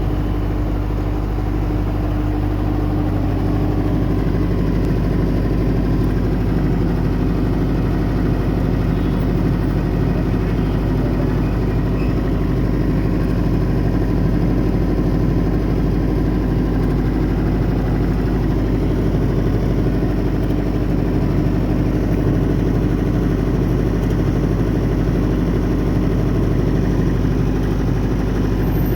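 Denyo 22 kVA generator set's diesel engine running at a steady speed.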